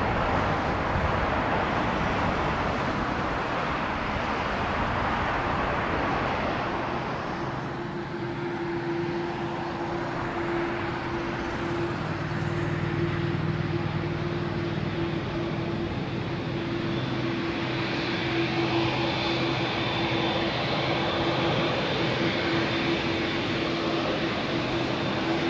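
Jet airliner on its landing approach, engines heard as a continuous rushing noise. A steady hum joins about a quarter of the way in, and a higher whine builds through the second half.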